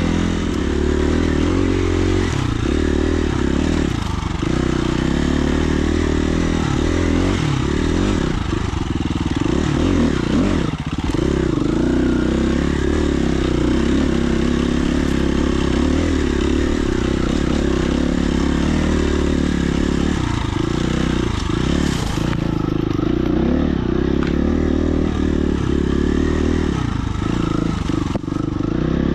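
Dirt bike engine running as the bike is ridden along a trail, the revs rising and falling, with brief drops in pitch about four seconds in and again around ten seconds.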